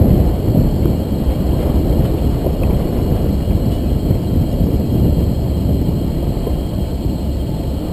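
Wind buffeting the microphone: a loud, irregular low rumble with no clear tone in it.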